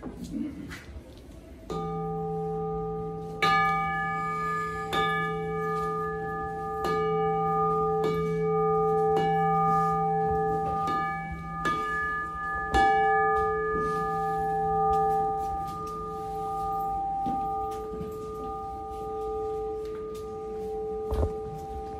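Brass temple singing bowl (bowl bell) struck with a wooden striker about every two seconds, each stroke renewing a steady, slowly wavering ring with several overtones that carries on between strikes.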